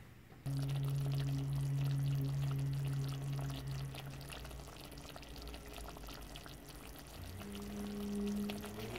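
Thick coconut korma sauce simmering and being stirred with a wooden spoon in a stainless steel pan, with soft bubbling and crackling. A low steady hum runs underneath and shifts pitch near the end.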